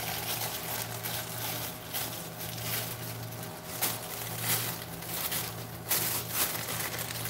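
Thin plastic bag rustling and crinkling as it is handled, in irregular bursts, over a steady low hum.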